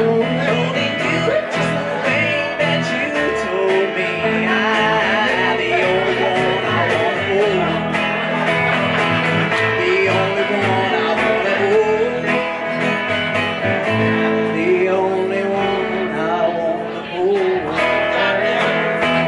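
Live country band playing with no words heard: electric guitar, upright bass and a second guitar, with melodic guitar lines over a steady plucked bass.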